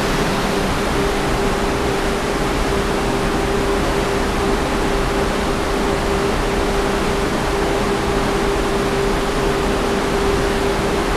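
Gale-force wind of about 50 knots rushing steadily past a cruise ship balcony and over the microphone, mixed with the wash of the sea, with a steady tone held underneath.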